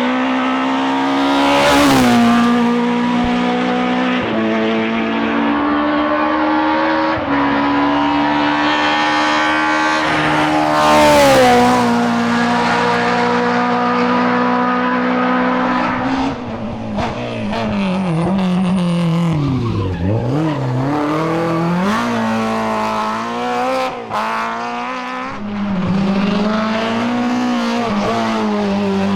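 Group A BMW M3 E30 rally car's four-cylinder S14 engine running hard at high revs, its pitch stepping with gear changes. The pitch drops sharply twice early on, and about two thirds of the way through the revs fall low briefly and climb again.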